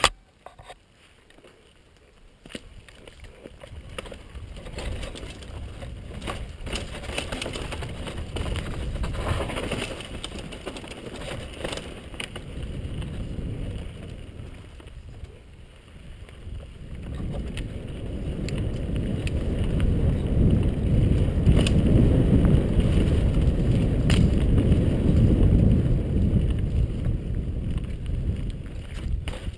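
Downhill mountain bike riding fast down a dirt trail: a low rush of wind on the microphone and tyre noise that builds with speed and is loudest in the second half, with sharp clicks and knocks as the bike rattles over roots and bumps.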